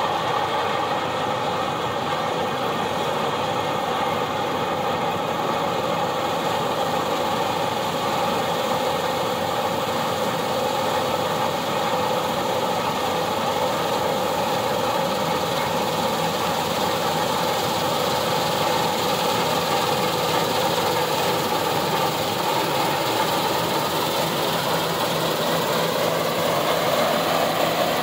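Claas Lexion 8900 combine harvester working under load while cutting barley: a steady drone of engine and threshing machinery with several high whining tones over it, getting a little louder near the end.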